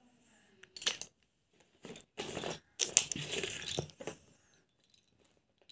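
Pencil scratching lines on paper along a steel ruler, a handful of short scratchy strokes, the longest about a second.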